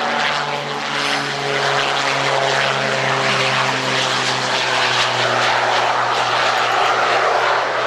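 Propeller aircraft engine drone as a single-engine trainer lands and rolls out along the runway, a steady hum with a broad rush of propeller and air noise.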